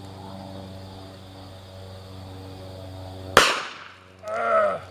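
One shot from a DoubleTap .45 ACP two-barrel pocket pistol about three seconds in, a shot the shooter believes was a double, with both barrels firing at once. A short vocal exclamation falling in pitch follows just before the end, over a steady low hum.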